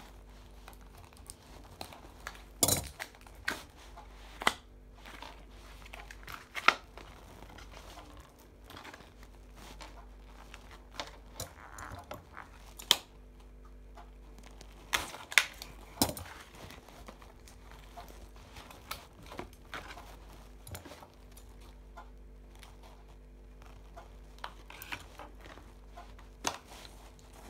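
Scissors snipping and plastic packaging crinkling, in scattered sharp clicks and rustles at irregular intervals, as the threads sewing a doll's hair to the plastic packaging insert are cut.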